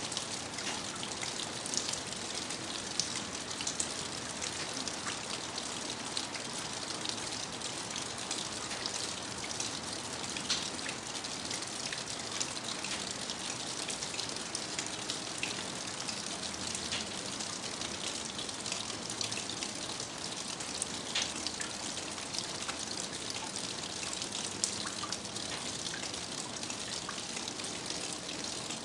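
Steady rain falling: an even hiss with many separate drop ticks scattered through it.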